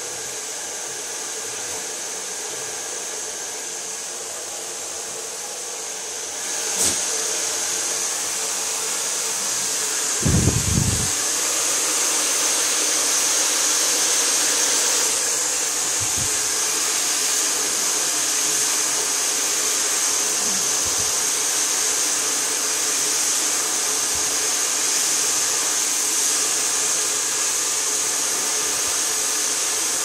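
Taiff Tourmaline Íon Cerâmica 2000-watt hair dryer blowing steadily while drying hair over a round brush. It grows louder about seven seconds in, and there is a brief low bump a few seconds later.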